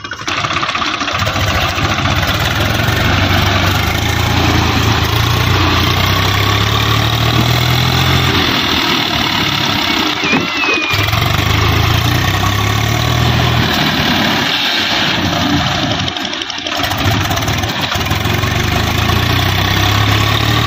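Swaraj tractor's diesel engine running steadily under load as its rear-mounted rotavator churns a flooded paddy field into mud, puddling it for rice transplanting. The engine note dips briefly twice, about ten and sixteen seconds in.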